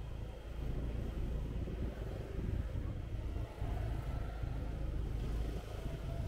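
City street traffic heard from a moving motorbike: a steady low rumble, with a scooter running close alongside.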